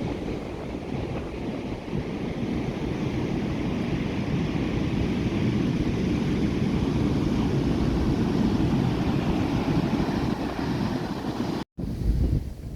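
Surf breaking on the beach, mixed with wind buffeting the microphone as a steady rumbling rush. The sound cuts out briefly near the end.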